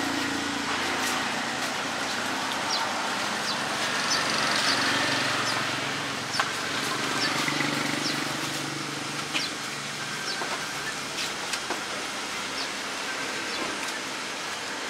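Street background noise: a steady hum of traffic with vehicle engines running, and a few faint clicks scattered through it.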